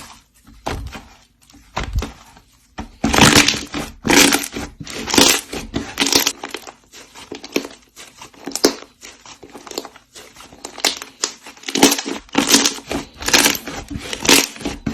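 Slime being squeezed and pressed by hand, giving a run of short, sharp bursts of sound, roughly one a second, from about three seconds in, with fainter scattered clicks before.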